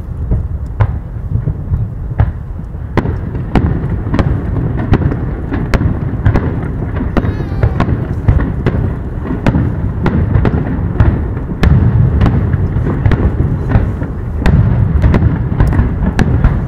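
Aerial fireworks going off: a run of sharp bangs, at times several a second, over a low rumble. It grows louder near the end.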